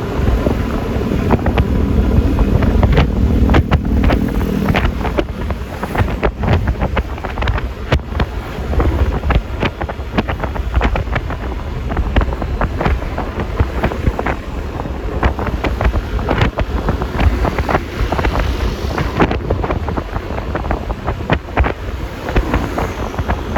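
Wind buffeting the microphone at riding speed, with constant crackles, over the low drone of a Yamaha Lexi LX 155 scooter's single-cylinder engine and road noise.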